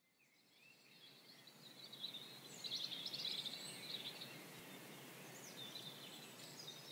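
Faint birdsong: short chirps and a quick trill over a soft steady hiss, fading in about a second in and dying away near the end.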